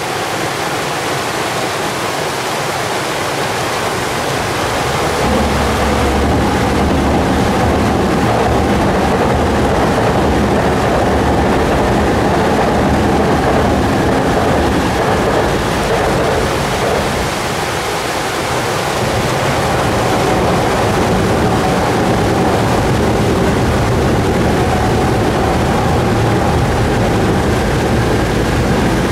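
Water rushing steadily over a concrete river weir. A low train rumble joins it about five seconds in as a Chuo Line commuter electric train crosses the steel girder bridge, eases off around eighteen seconds, and builds again as a limited-express train crosses.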